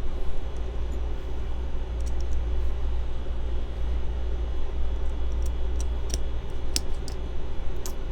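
A steady low rumble of background noise, with a few light clicks of the small metal parts of an OTF knife being put back together, the sharpest about three quarters of the way through.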